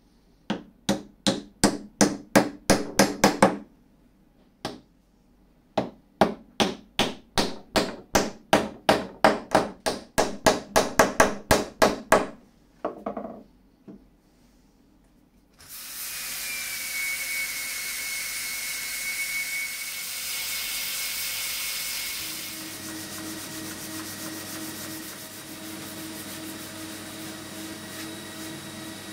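Hammer tapping glued wooden wedges into a stool's through-wedged mortise and tenon joints: two long runs of quick strikes, each getting faster, with a couple more taps after. About halfway through, a steady hiss and hum takes over.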